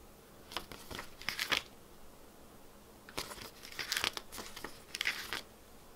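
Paper pages of a Blu-ray booklet being turned and flipped by hand: a series of short papery rustles and flicks.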